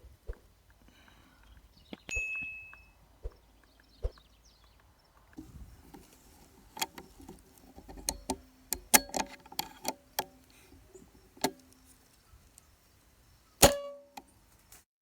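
Scattered sharp clicks and knocks of handling, with a short metallic ring about two seconds in, a quick run of clicks in the middle, and a louder click with a brief ring near the end.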